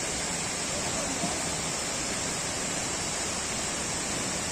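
Steady rush of flowing river water, an even hiss without breaks.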